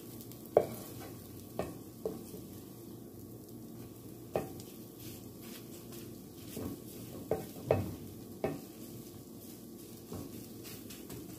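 Wooden spatula scraping and knocking against a frying pan at irregular moments while scrambled egg is stirred and pushed around, with a faint sizzle underneath. The sharpest knock comes about half a second in, and several more come close together around the middle of the stretch.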